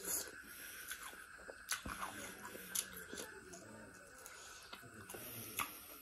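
A person chewing and biting mouthfuls of duck curry (nganu thongba) with rice, with several sharp clicking bites spread through.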